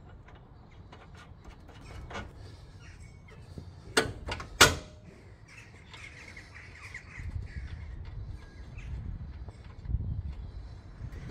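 Small metal clicks and knocks from a lower control arm and ball joint being worked into place on a van's front suspension, with two sharp clanks about half a second apart a third of the way through. Birds cawing in the background.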